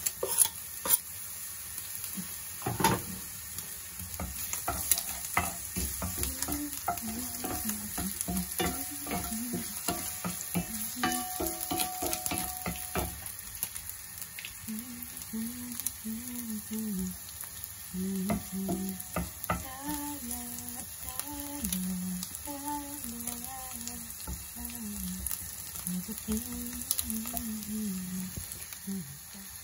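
Chopped onion frying in hot olive oil in an enamelled pan, sizzling steadily, with a wooden spoon stirring and scraping against the pan bottom. A low hummed melody runs over it from about seven seconds in.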